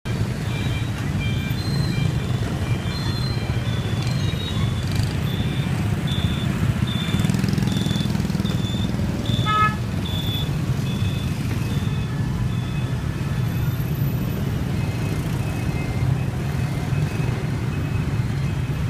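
Busy street traffic: a steady rumble of motorbike and truck engines, with a horn toot about halfway through.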